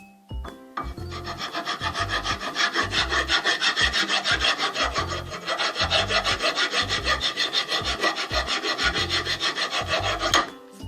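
Rapid, even back-and-forth rasping strokes of a hand file or abrasive worked against a hard surface, about five strokes a second. The strokes begin about a second in and stop just before the end.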